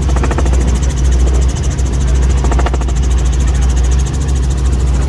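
Robinson R44 Raven helicopter in flight, heard from inside the cabin: the steady, loud drone of its piston engine and rotors, a deep low hum with a fast, even pulsing.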